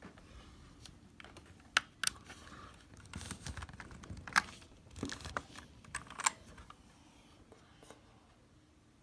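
Keys on a budget mechanical keyboard with red linear switches being pressed in scattered, irregular clacks, a few of them much louder than the rest.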